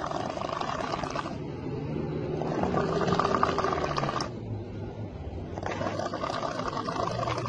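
A person snoring with a rough, rattling snore. It swells and eases in long breaths of about two to three seconds each, with a low hum running under the rattle.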